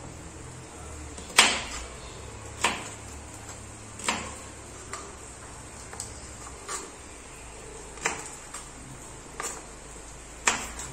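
Knife slicing jackfruit seeds on a plastic cutting board: sharp knocks of the blade striking the board, unevenly spaced at roughly one a second, about nine in all.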